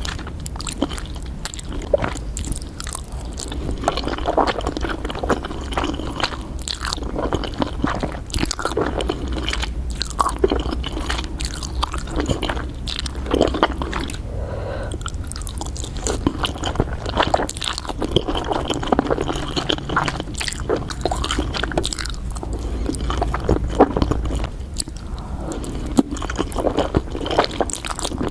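Close-miked mukbang eating of Samyang carbonara fire noodles: continuous chewing with wet squishing and frequent sharp biting clicks.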